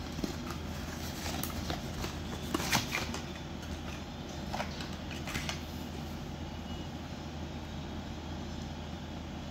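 Cardboard packaging handled: scattered rustles, scrapes and light taps as a plug-in phone charger and its cardboard tray are slid out of the box, busiest in the first half. A steady low hum runs underneath.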